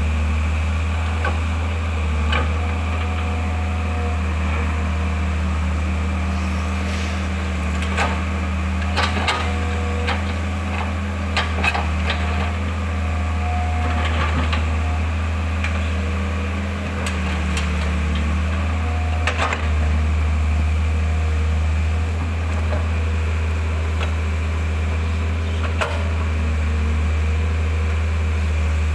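Mitsubishi MS120 excavator's diesel engine running steadily under digging load, with short hydraulic whines coming and going as the boom and bucket move. Scattered clanks and knocks from the bucket and linkage, mostly in the middle and again near the end, as it scoops soil out of a ditch.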